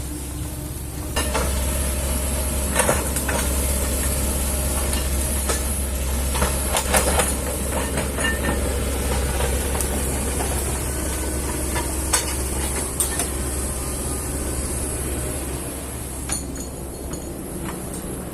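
Kobelco hydraulic excavator's diesel engine running steadily and picking up load about a second in, with scattered knocks from the working machine.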